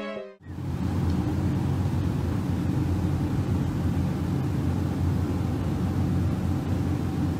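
Steady road and engine noise inside a moving car's cabin, a low rumble with hiss over it, starting about half a second in.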